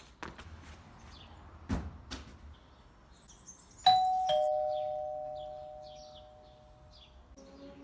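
Two-note ding-dong doorbell chime, a higher note followed by a lower one, each ringing on and fading away over about three seconds. A few footsteps come before it.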